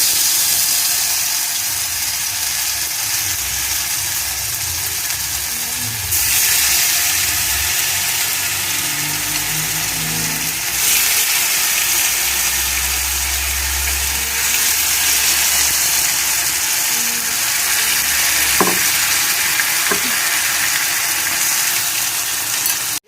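Marinated chicken 65 pieces deep-frying in hot oil in a pan: a loud, steady sizzle that swells about six seconds in. There are a couple of light clicks near the end.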